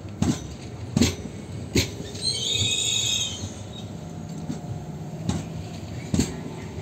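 SBB RABe 501 Giruno electric multiple unit rolling slowly into the platform as it arrives. Its wheels knock over rail joints at irregular intervals about a second apart, and a brief high-pitched squeal from the running gear comes about two to three seconds in, over a steady low rumble and hum.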